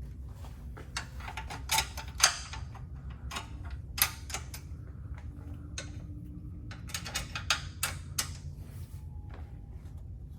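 Irregular metallic clicks and clinks of tools and bolt hardware being handled while an aftermarket sway bar is fitted to a Can-Am Spyder. There are clusters of sharp taps about two seconds in, at four seconds and around seven to eight seconds, over a steady low hum.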